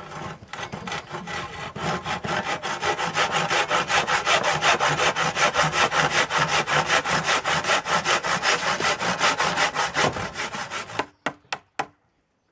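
Handsaw cutting across a green oak beam in quick, even strokes. It is sawing the row of kerfs for a tenon. The sawing stops about eleven seconds in, followed by a few sharp taps.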